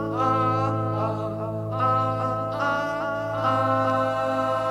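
Studio rock recording: a high male lead vocal sings a bluesy line with wavering pitch over a sustained held chord, with no drums.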